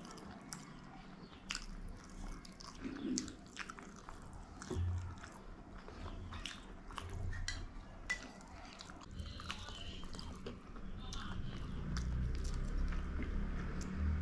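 Close-up chewing of steamed chicken momos, with many short wet clicks from mouths and food. It grows louder near the end.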